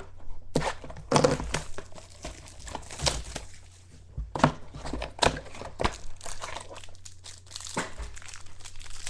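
Shrink-wrap and cardboard of a sealed trading-card box being torn and crinkled open by hand, in irregular crackles and short rips.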